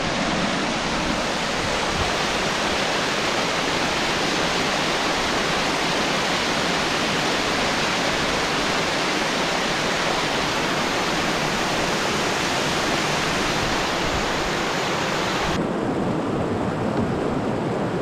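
Steady rush of falling water from a waterfall. Near the end the sound turns duller as its hiss drops away.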